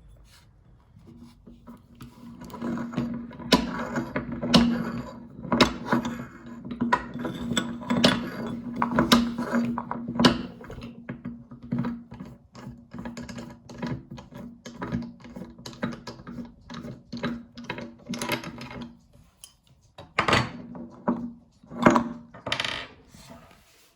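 Electric meat grinder running with a steady hum while grinding fruit jelly, with many clicks and crackles over the motor. The motor stops about 19 seconds in, followed by a few loud knocks.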